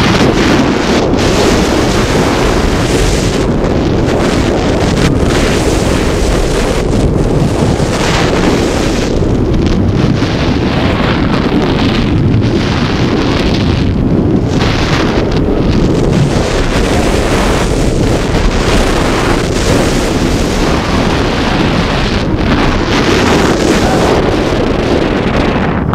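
Wind buffeting the microphone and the rumble of a Rocky Mountain Construction hybrid roller coaster train running fast over its steel-topped track. The wind comes in gusts that swell and fade every second or two.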